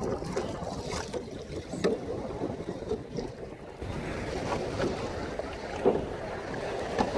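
Sea water sloshing and splashing around a small kayak, with a few irregular splashes and wind buffeting the microphone.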